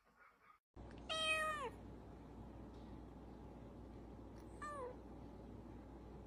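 A domestic cat meowing twice: a loud, drawn-out meow about a second in that drops in pitch at the end, then a short, quieter meow a few seconds later.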